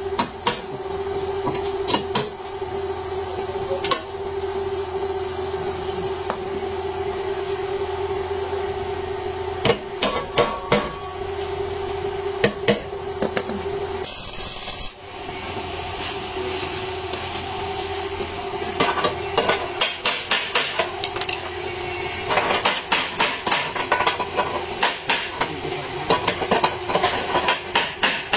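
Hammer blows on a car body panel during collision repair, over a steady mechanical hum. A few scattered taps at first, a brief hiss about halfway through, then a quick run of blows, about four a second, in the last third.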